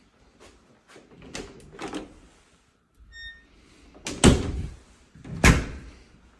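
Doors being handled: a few light knocks and clicks, a short electronic beep a little after three seconds, then two loud door thuds about a second apart.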